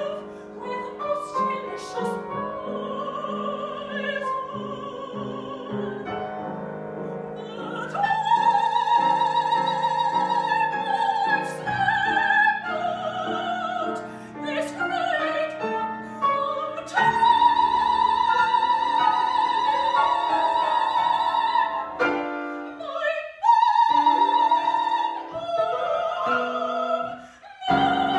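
Operatic soprano singing with vibrato, accompanied by a grand piano. She holds several long notes, the longest about eight seconds and seventeen seconds in.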